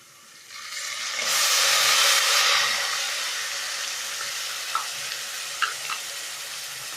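Tomato-onion paste going into hot oil with browned onions in a pan: sizzling that swells into a loud burst about a second in, then settles into a steady frying hiss. A couple of short clicks come in the second half.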